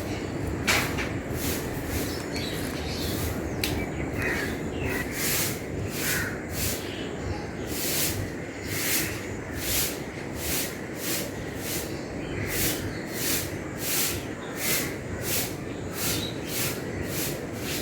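Broom sweeping the ground in short swishing strokes, irregular at first, then settling into a steady rhythm of about two strokes a second, with birds chirping behind.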